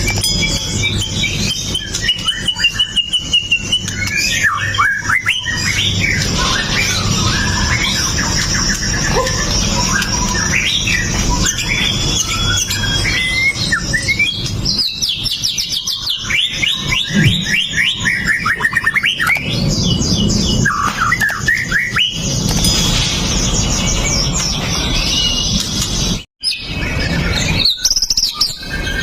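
White-rumped shama singing a long, varied song of whistled notes, quick trills and sharp sweeping calls, almost without pause.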